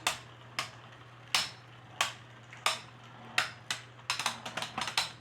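3D-printed Beyblade spinning tops clashing in a stadium: sharp clacks about every two-thirds of a second, then a quick rattle of hits near the end.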